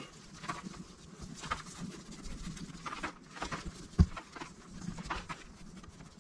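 Intermittent soft rustling and scraping of hands pressing and working a ceramic-wool insulating blanket into a propane forge's body, with one sharp knock about four seconds in.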